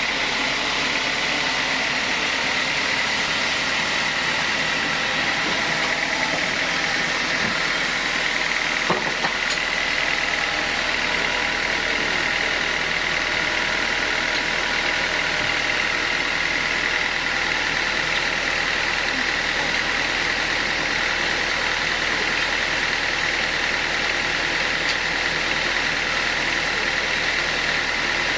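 Sawmill saw machinery running steadily with a constant high whine and no change in load. There is a single small knock about nine seconds in.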